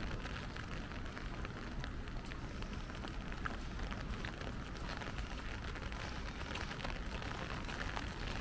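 Light rain falling, with many small scattered drop ticks over a steady hiss and a low rumble underneath.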